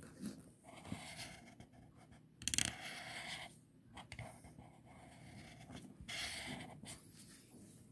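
Green highlighter's felt tip scraping back and forth over paper as a box is coloured in: faint, uneven strokes of scratching.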